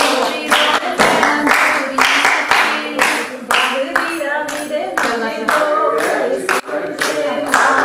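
A group singing together to steady hand clapping, about two claps a second.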